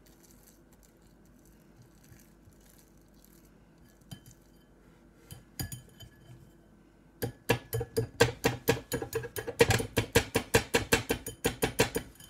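Pancake batter being beaten by hand: a utensil clinking against the mixing bowl in quick, even strokes, about five a second, starting about seven seconds in. Milk is being worked into a thick paste to beat out lumps.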